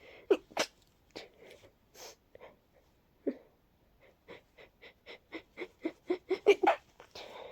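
A person's congested, breathy sneezes through a stuffed-up nose from a cold: two sharp bursts near the start, a few scattered ones, then a quick run of short, wheezy breaths, about four a second, that grows louder toward the end, like a sneeze building up.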